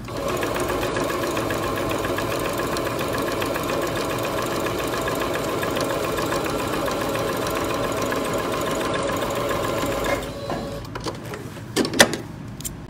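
An electronic domestic sewing machine runs steadily, stitching a seam through fabric, and stops about ten seconds in. A couple of sharp clicks follow near the end as the work is handled at the machine.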